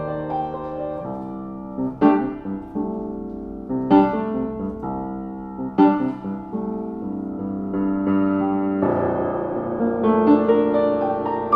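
Ritmüller RS-series upright piano being played: full chords struck about every two seconds, each ringing out and fading, then a busier passage of many notes in the last few seconds.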